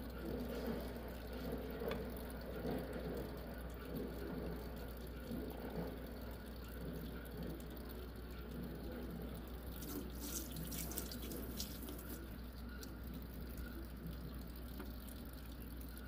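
Shallow water sloshing and dripping in a small plastic tub as fingers and a frog move in it, with a few sharp ticks about ten seconds in.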